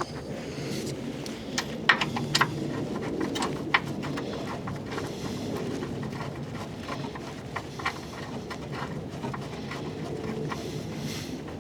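Scattered light clicks and clinks of a socket and hand tools being handled while refitting an oil-pan drain plug, over a steady low background hum.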